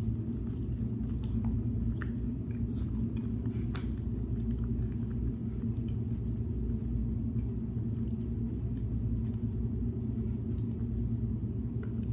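A person biting into and chewing corn on the cob, with small sharp clicks mostly in the first few seconds. A steady low rumble runs underneath.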